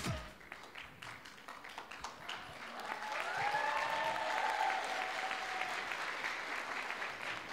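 Audience applause. It starts as scattered claps and fills out into steady applause about two and a half seconds in, with a few faint voices calling out in the middle.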